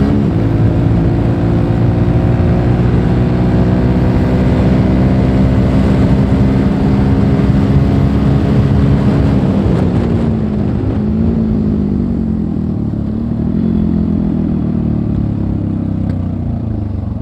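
Suzuki Gixxer motorcycle's single-cylinder engine running steadily under way, with a rushing air noise over it. About ten seconds in, the rushing drops away and the engine pitch falls and wavers up and down as the bike slows and the throttle is eased on and off.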